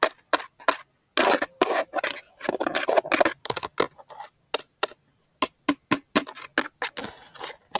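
Paper clips worn on the fingernails tapping and clicking irregularly against a small object, in quick runs and single taps.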